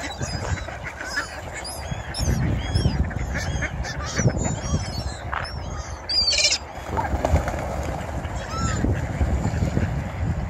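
A flock of mallard ducks quacking and gulls calling, many short calls overlapping, with a low rumble underneath.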